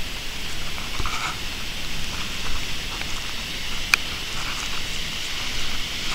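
Flash-flood runoff pouring and splashing down a slot canyon wall in a small waterfall, with rain falling: a steady, hissing splash. A single sharp click about four seconds in.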